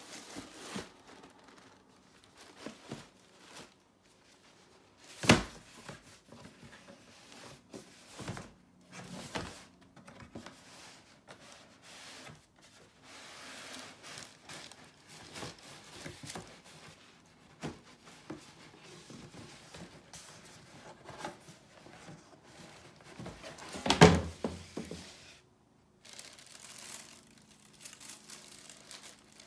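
A cardboard shoe box being handled and opened, with tissue paper rustling and crinkling. Two sharp knocks stand out, one about five seconds in and a louder one about four-fifths of the way through.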